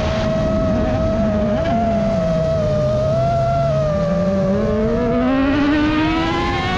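Autocross buggy engine dropping in pitch through a turn, then revving up steadily as it accelerates onto the straight, under the steady whine of the chasing FPV drone's motors.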